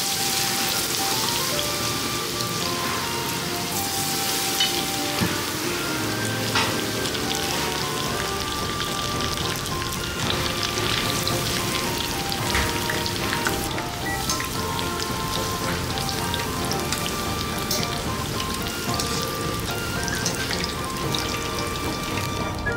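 Battered tempura deep-frying in pans of hot oil: a steady, dense sizzle with fine crackling, with background music underneath.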